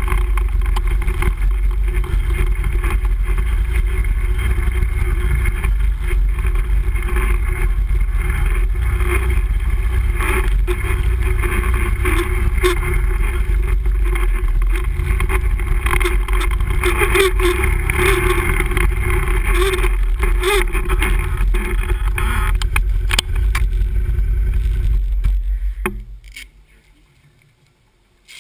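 Can-Am Renegade ATV engine running steadily as the quad rides a rough trail, heard from a camera mounted on the machine. Near the end the sound falls away to near quiet.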